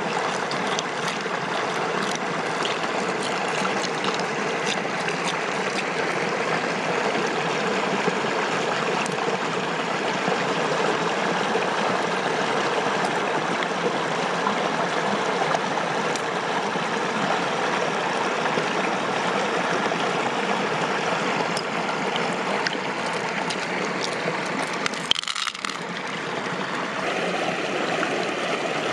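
Steady rush of flowing water, with scattered small clicks and knocks over it. The rush drops out briefly near the end.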